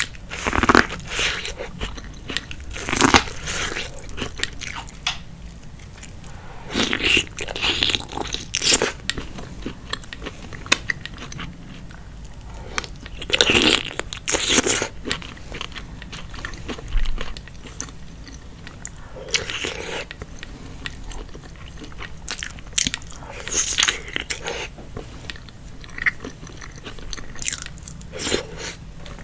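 Close-miked eating sounds of a seafood boil: a person biting and chewing, with crunchy bites coming in bursts every few seconds.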